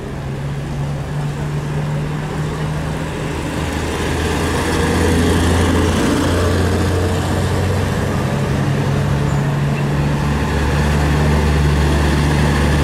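Minibus engines running as the buses drive past close by, with a steady low engine note that grows louder over the first few seconds and shifts in pitch a couple of times.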